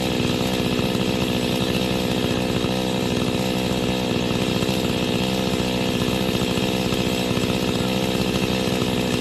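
Chainsaw engine running steadily at high speed, without a break.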